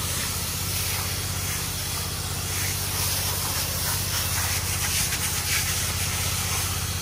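Pressure washer wand hissing as it sprays a foaming sodium hypochlorite and surfactant cleaning solution onto stone entry steps, over a steady low hum from the machine.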